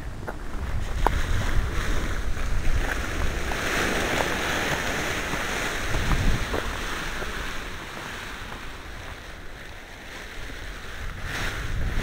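Wind buffeting the microphone in gusts, a low rumble with a rushing hiss that swells about four seconds in and eases off later.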